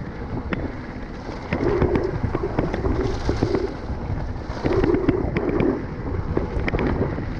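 Mountain bike rolling fast down a concrete-slab and dirt track: the tyres rumble and the bike rattles with sharp clicks over the bumps, while wind buffets the microphone. The rumble gets louder and buzzier about a second and a half in and again near five seconds.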